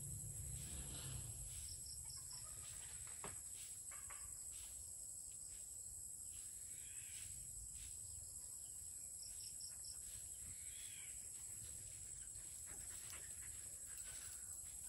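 Rural outdoor ambience: steady high-pitched buzzing of insects throughout, with a few bird calls, including short quick chirp series about two seconds in and again near the middle.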